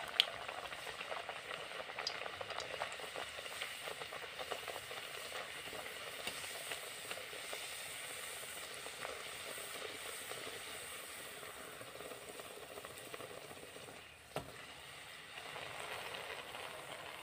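Spinach puri deep-frying in hot oil in a kadhai: a steady sizzle as the puri puffs up, with a few faint clicks.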